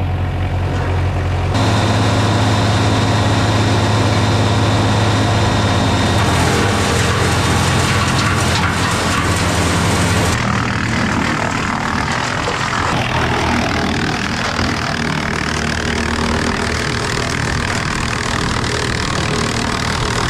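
Diesel-engined wood chipper running at full revs, loud and steady with the rush of its spinning rotor. The engine comes up to speed about a second and a half in, and the high rush drops back about ten seconds in.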